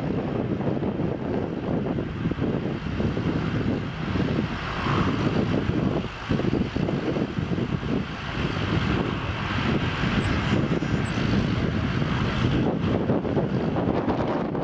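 Antonov An-225 Mriya's six Progress D-18T turbofan engines running steadily as the aircraft holds on the runway before its takeoff roll.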